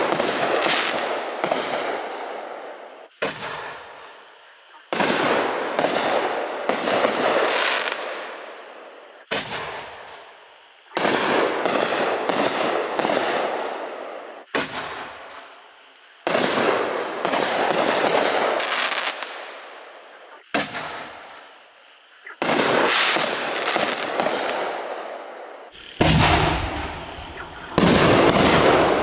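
60-gram canister firework shells going off one after another, about ten sharp bangs a few seconds apart. Each bang is followed by crackling and hissing that fades away. The last two, near the end, come closer together and louder.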